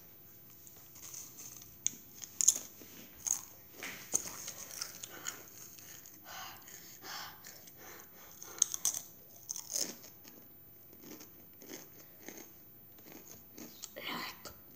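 Close-up crunching and chewing of Doritos tortilla chips, an irregular run of sharp crisp bites, with the loudest crunches about two and a half seconds in and again around nine seconds in.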